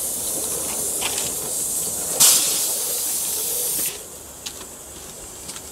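Live-steam model locomotive hissing steam steadily, with a brief louder burst of hiss about two seconds in. The hiss drops off sharply about four seconds in, and a softer hiss carries on.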